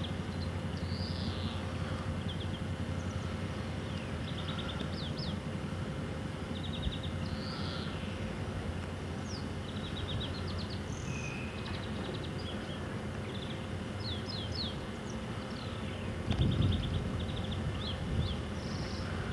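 Small birds chirping and trilling in short repeated phrases over a steady low background rumble. A louder low rumble comes briefly near the end.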